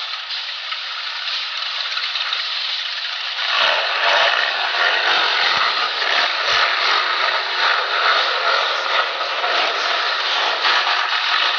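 Centurion tank engines running loudly with a rattling mechanical clatter, growing louder about three and a half seconds in.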